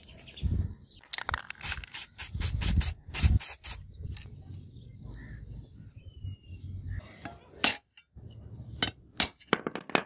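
Aerosol spray-paint can rattling: a quick run of sharp clicks, about five a second, for a couple of seconds, then a few single clicks near the end.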